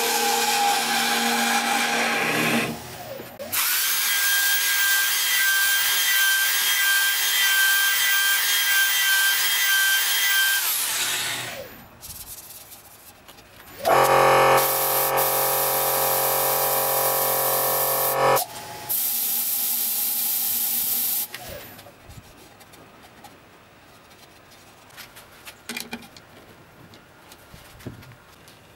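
Wood lathe spinning a wooden bowl while a gouge cuts it, heard in several short cut-together clips. One clip carries a steady high whine and another a steady pitched hum. The last several seconds are much quieter, with a few faint knocks.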